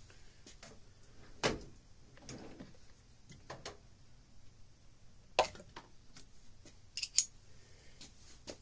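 Sparse clicks and knocks of small tools being handled while a screwdriver bit is picked out and fitted to a driver. The loudest knock comes about five and a half seconds in, with a quick pair near seven seconds.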